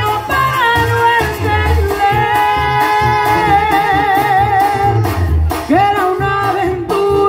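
Live Mexican banda music from the stage: a woman sings the lead, holding a long, wavering note in the middle, over brass and a pulsing sousaphone bass line.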